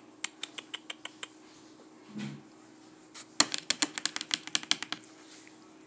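A cat licking its fur: runs of quick, sharp lapping clicks, first about five a second, then a faster, louder run in the second half. A brief low sound comes about two seconds in.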